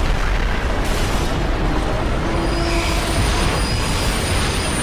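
Train crash sound effect: a loud, continuous din of colliding and derailing railway wagons, with no separate impacts standing out.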